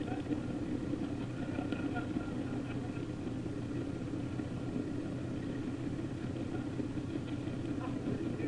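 Fishing boat's engine running steadily under way, a constant low drone, with water rushing along the hull.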